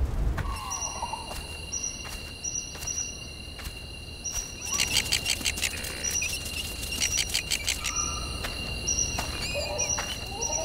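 Outdoor nature ambience of birds: a regular series of short high chirps over a steady high tone, with rapid trills about halfway through. Short squeaky animal calls come in near the start and again near the end.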